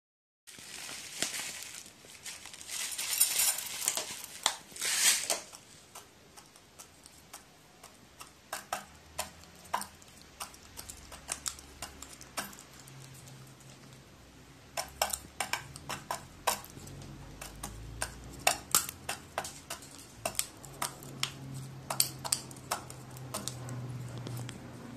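Crow pecking in a stainless steel food bowl: irregular sharp taps and clicks of its beak against the metal and the seeds. A burst of rustling comes in the first few seconds.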